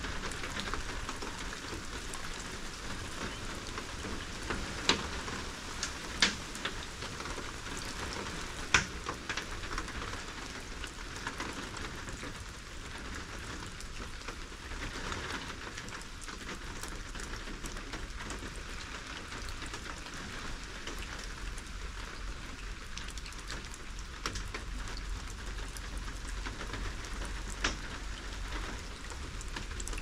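Steady rain falling, with a few louder single drops striking a surface, the sharpest about five, six and nine seconds in and once near the end.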